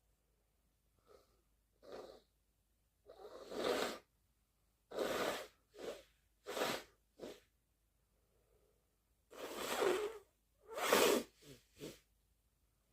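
A person's stifled, muffled sneezes, several in a row in two clusters, with short quick breaths or sniffs between them.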